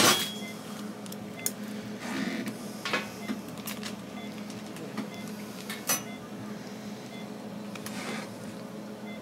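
Surgical implant motor handpiece running slowly with a steady hum as it drives a dental implant into the jaw, with a few sharp clicks of instruments against it.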